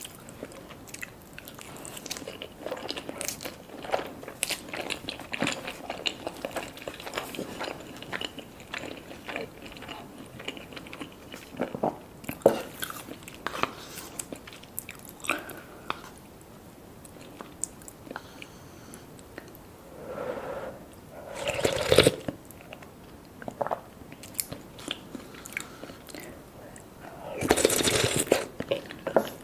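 Close-miked eating: a person biting, crunching and chewing food, with many small crackles. There are louder, fuller bites about two-thirds of the way in and again near the end.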